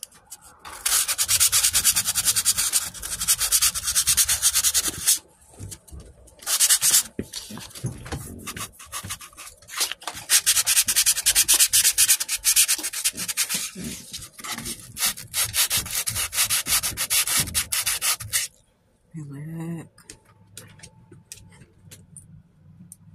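Fine sandpaper rubbed by hand in quick back-and-forth strokes over the painted steel of a metal cabinet, scrubbing off small rust spots. There is a short pause about five seconds in, and the sanding stops about eighteen seconds in.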